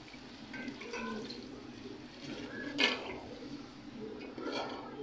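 Water pouring from a plastic container into a metal pot of potato curry. About three seconds in comes one sharp knock, and near the end a metal spoon scrapes and clatters as the curry is stirred.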